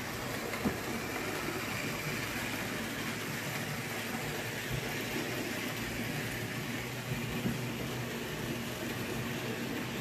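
Märklin H0 model freight train running along the layout track: a steady rolling rumble of the locomotive's motor and the wagons' wheels on the rails, with a sharp click near the start and another about three quarters of the way through.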